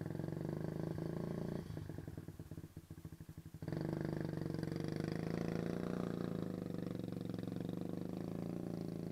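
A steady low motor hum that falters into a rapid stuttering pulse for about two seconds, then abruptly comes back steady.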